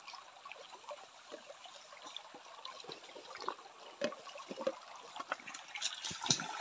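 Small stream trickling steadily, with light clicks and rustles of hands picking through wet leaves in a mesh net; the clicks get busier and louder near the end.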